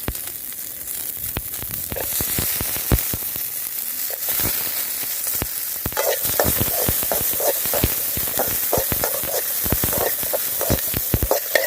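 Small onions and garlic sizzling in hot oil with roasted pepper, cumin and coriander seed, a steady high sizzle. Frequent sharp clicks and scrapes run through it, thicker in the second half, from the pan being stirred.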